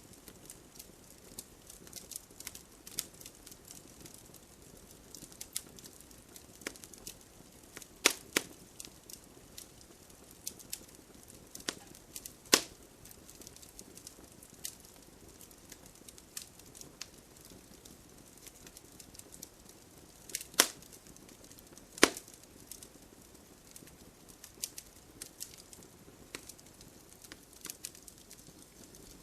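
Wood campfire crackling: irregular sharp pops and snaps over a soft steady hiss, with a few louder pops scattered through.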